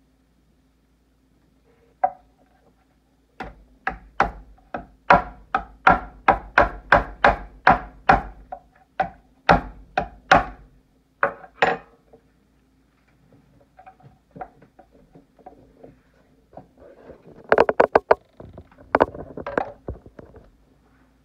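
Cooked lobster shell being cracked by striking it again and again with a heavy stone cylinder on a wooden cutting board: a run of sharp knocks, about two or three a second, for several seconds. Near the end comes a quick cluster of sharp cracks as pieces of shell are broken apart.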